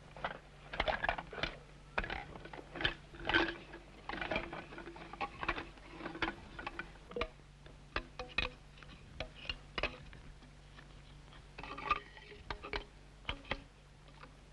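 Irregular light knocks and clicks of bamboo tubes being handled and tapped against stone, with no steady beat yet.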